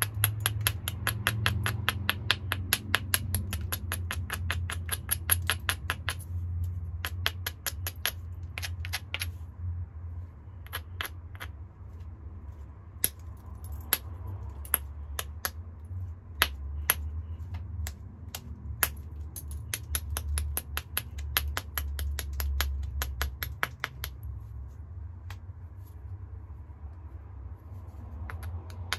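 Small round hammerstone working the edge of a hornstone biface: runs of quick light stone-on-stone clicks, about five a second, broken by short pauses and a few harder strikes. A steady low hum runs underneath.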